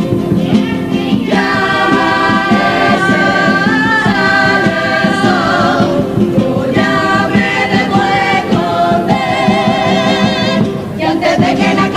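Carnival comparsa choir of mixed men's and women's voices singing sustained lines in harmony, some notes held with vibrato, over a steady beat.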